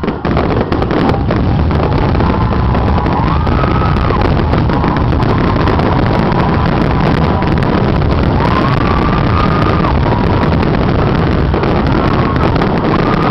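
Aerial fireworks going off in a dense barrage: shells bursting in quick succession, running together into a continuous loud din of booms and crackling, with a few whistles rising and falling over it.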